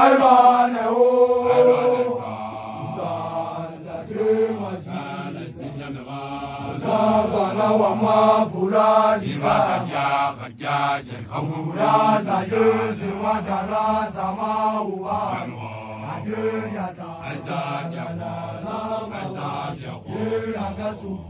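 A large group of men chanting together, in repeating rhythmic phrases: the initiates in red blankets singing their group song.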